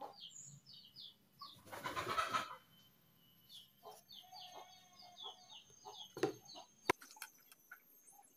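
A bird chirping in quick runs of short, slightly falling high notes, with a brief louder noisy burst about two seconds in and a few sharp clicks near the end.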